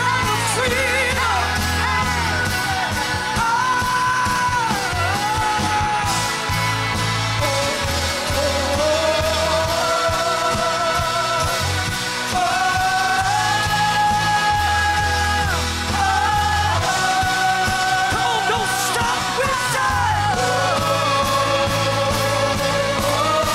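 Live worship music: several singers holding long, gliding notes over a band with electric guitar and a bass that plays long low notes.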